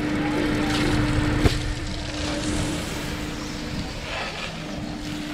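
Garden hose spraying water against the underside of a car's front bumper, a steady hiss of spray with a constant low hum beneath it and one sharp knock about one and a half seconds in.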